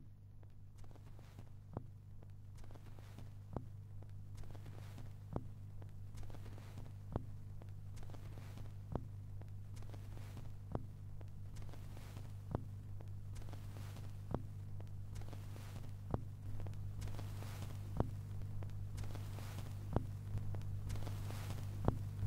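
Steady low hum with sharp clicks repeating about every two seconds. A hiss slowly grows louder toward the end.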